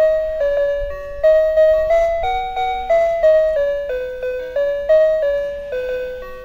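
Background music: a simple melody of short notes, each starting sharply and fading, at a steady pace.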